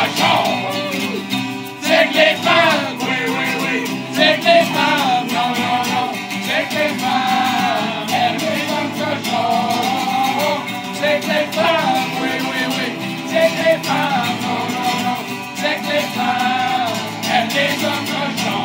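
Men singing together, accompanied by a strummed acoustic guitar.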